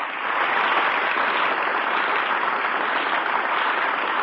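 Studio audience applauding steadily, heard on an old radio broadcast recording.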